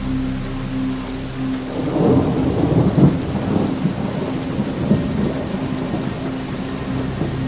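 Thunder rumbling over steady rainfall: the rumble swells about two seconds in, is loudest around the third second, and dies away over the next couple of seconds while the rain keeps falling.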